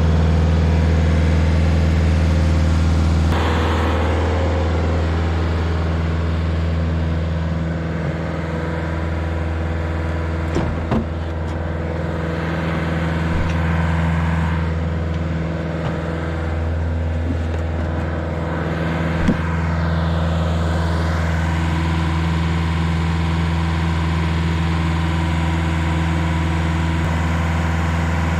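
Rayco RG50 stump grinder running at a steady engine note, its cutter wheel chewing into a stump with a rough grinding noise that swells and fades as it sweeps back and forth. Two sharp knocks come in the middle.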